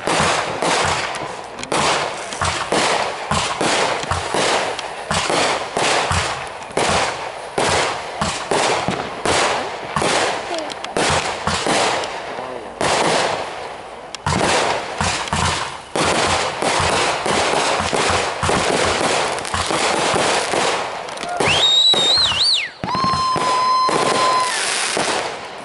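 Backyard consumer fireworks going off in a rapid, continuous barrage of bangs and crackles. Near the end, whistling shells add a rising, wavering whistle and a steady high whistle over the crackling.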